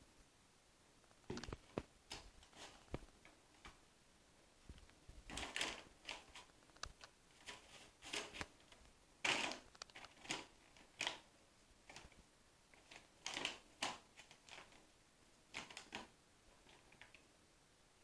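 Brown paper bag crinkling and rustling in irregular bursts as a kitten pushes its head into it and paws at it.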